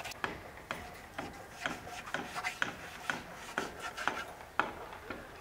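Kitchen knife slicing buffalo intestine on a wooden cutting board: a rasping cut with a sharp tap of the blade on the board about twice a second.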